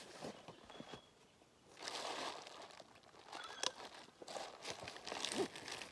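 Rustling and crinkling of synthetic fabric as a stuff sack and a bundle of green fabric are crammed into a backpack, in uneven bursts from about two seconds in, with a few light knocks.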